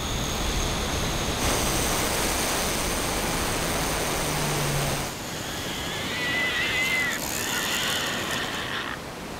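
Steady rushing roar of white-water river rapids, its character changing abruptly twice, with a brief high wavering whine about six seconds in.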